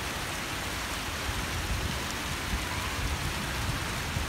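Steady rain falling onto paving and pool water, an even hiss with a low, uneven rumble underneath.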